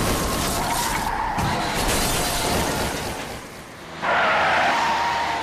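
Animated sound effects of a small white kei truck hitting a pedestrian: a crash with shattering windshield glass that fades away. Then, about four seconds in, a sudden loud tyre screech as the truck brakes.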